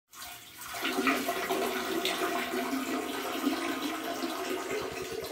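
Toilet flushing: a steady rush of water that swells about a second in and cuts off suddenly at the end.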